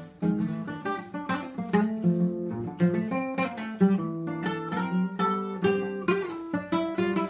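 Solo classical guitar played by hand, a steady run of plucked notes and chords, each ringing and dying away.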